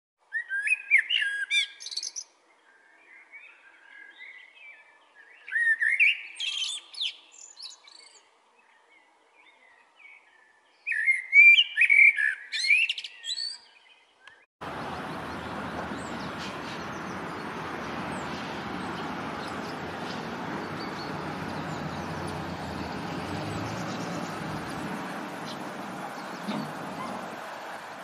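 Common blackbird singing: three fluting, twittering phrases a few seconds apart. About halfway through, a steady rushing noise cuts in abruptly and the song stops.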